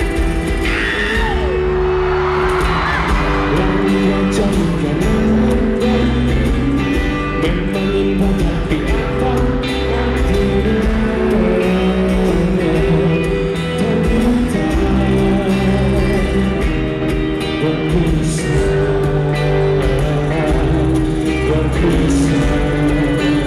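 Live band music over a concert PA: a male singer with guitars, bass and drums, playing steadily.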